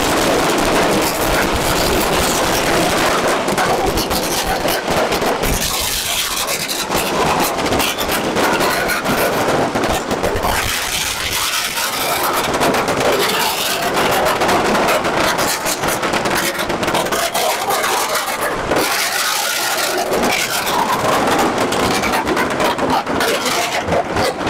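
A long string of firecrackers going off in a rapid, continuous crackle of small bangs.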